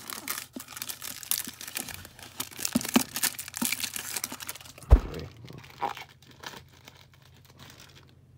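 Packaging crinkling and rustling as a small box of playing cards is worked open by hand, with a single loud thump about five seconds in.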